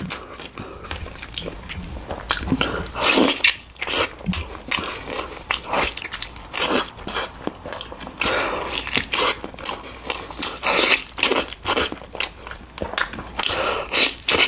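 A person chewing and biting food close to the microphone, with frequent irregular short mouth clicks and smacks.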